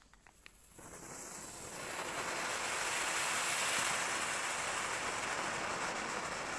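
Nico Summer Fountain, a small category F1 ground-fountain firework, catching about a second in and building within another second to a steady hiss of spraying sparks. A few faint ticks come just before it catches.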